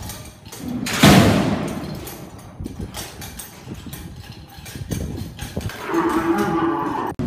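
A young bucking bull bellowing as it bucks out of the chute. There is a loud, rough bellow about a second in, and a second, more tuneful call near the end.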